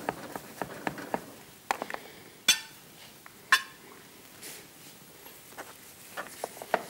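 Kitchen knife chopping garlic on a cutting board: a run of quick taps, with two louder, sharper knocks about a second apart in the middle.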